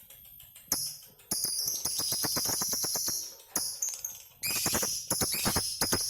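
Lovebirds ngekek: long, high-pitched, rapid rattling trills. The bouts start under a second in and break off briefly twice, near the middle and again a second later.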